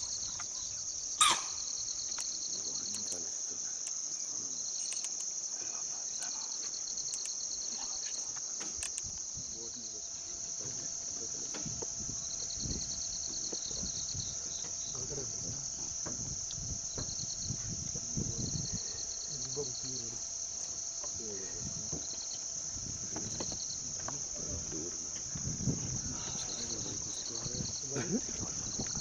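Insect chorus of crickets or cicadas: a steady high-pitched drone with short pulsed trills repeating every few seconds. A sharp click about a second in, and scattered low thuds in the second half.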